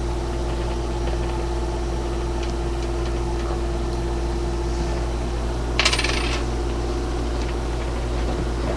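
A coin set down on a hard surface, rattling briefly about six seconds in, over a steady electrical hum with a held tone.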